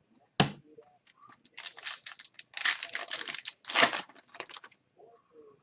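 Wrapper of a hockey card pack being torn open and crinkled, in a run of crackling tears, after a single sharp snap about half a second in.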